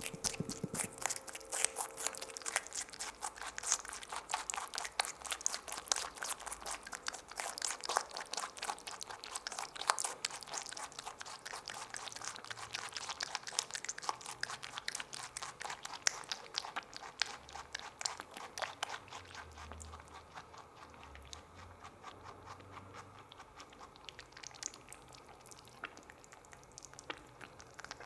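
A small rabbit chewing a grape close up: rapid, juicy crunching chomps, quickly repeated, growing quieter over the last several seconds.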